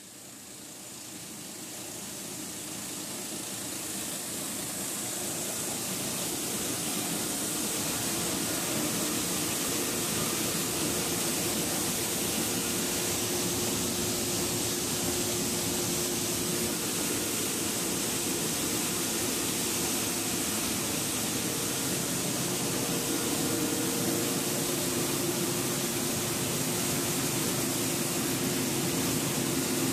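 Wire granulator system running, chopping insulated copper wire and separating it: a steady, even noisy hiss with a hum underneath. It fades in over the first few seconds, then holds steady.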